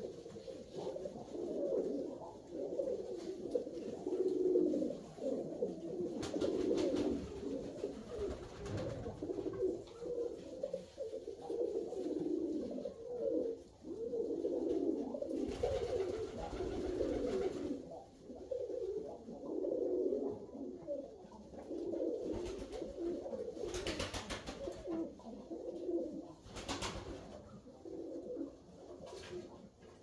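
Several Alföldi-Körösi tumbler pigeons cooing continuously, their calls overlapping, with a few short rustling noises in between.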